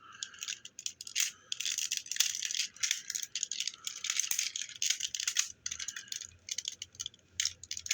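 Hard plastic toy robot parts clicking and rattling in quick, irregular runs as the pieces are handled and pulled apart.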